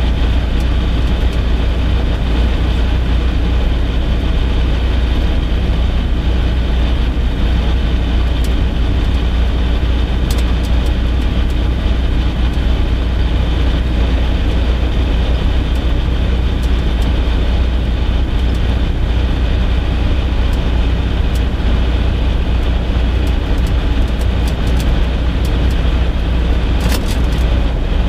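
Single-engine light aircraft's piston engine and propeller running steadily at low taxi power, heard from inside the cockpit as a constant deep rumble.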